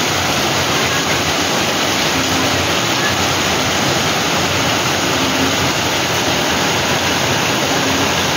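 Heavy rain pouring down steadily, a loud even rush with no break.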